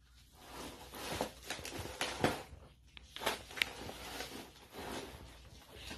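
Clear plastic bag and yellow padded mailer envelope crinkling and rustling irregularly, with sharper crackles now and then, as a cat pushes its head into the envelope with the bag hanging from its neck.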